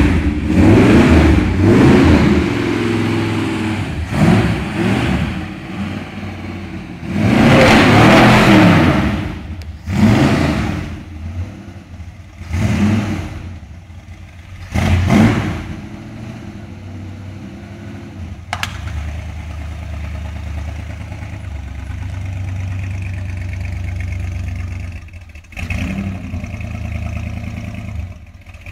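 Classic Ford Mustang coupe's engine being revved in a series of short throttle blips, one held longer about eight seconds in. It then settles to a steady idle for about ten seconds before a couple more blips near the end.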